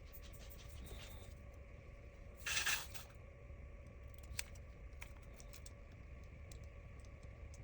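Faint small clicks and taps of tools and tiny parts being handled while working on a phone's insides, with one louder brief scraping rush about two and a half seconds in, over a steady low hum.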